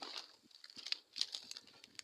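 Dry grass and twigs rustling and crackling, with irregular sharp snaps, as someone walks through brush carrying an armful of gathered brushwood.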